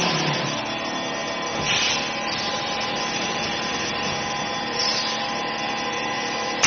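Belt-fed vacuum chamber packaging machine running its cycle on bagged surgical masks: steady noise of the vacuum pump drawing down the closed chamber, with brief rushes of hiss about two and five seconds in and a sharp click at the very end.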